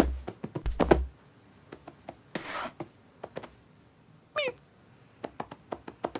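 Knocks and clicks, loudest near the start and about a second in, with a short rustle midway. A little after four seconds a domestic cat gives one brief meow that falls in pitch.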